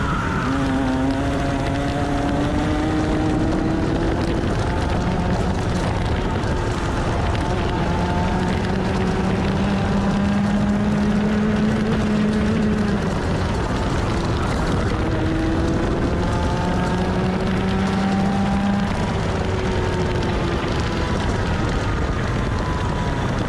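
Rotax 125cc two-stroke TAG kart engine, heard from onboard, revving up through each straight and falling away sharply into the corners, three or four times over.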